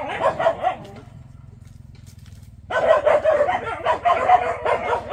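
Rapid short animal calls that bend up and down in pitch, stopping about a second in and starting again near the middle after a gap of about two seconds, over a steady low hum.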